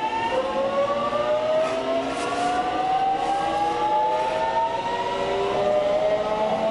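Electric commuter train's traction motors and inverter whining from inside the carriage, several tones rising steadily in pitch as the train picks up speed, over the rumble of running noise.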